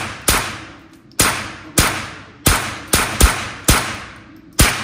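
Gunshots fired singly in quick succession, about eight in under five seconds, some a fraction of a second apart. Each shot is a sharp crack that rings out in the reverberant indoor range.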